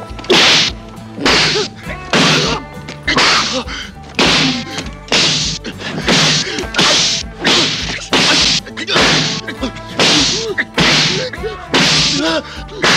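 Sharp, loud face slaps, an open hand striking a man's face over and over, about fourteen of them at roughly one a second, with a film score underneath.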